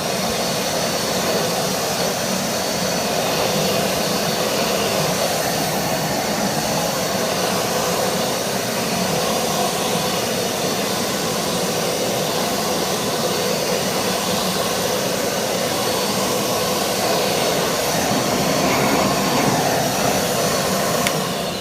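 Kärcher MV2 wet and dry vacuum cleaner running loud and steady, its floor head being pushed backwards and forwards over carpet.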